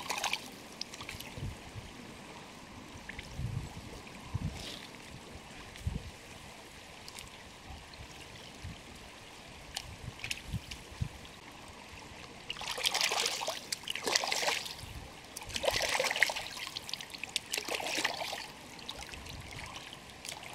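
Hands rinsing a fish in shallow river water: a soft trickle with light splashing, and two louder spells of sloshing after the middle.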